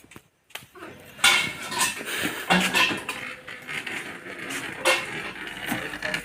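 Irregular clinks and knocks from pipe and fittings being handled while a pipe joint is fitted. The sharpest knock comes about a second in, and there are further ones scattered through the rest.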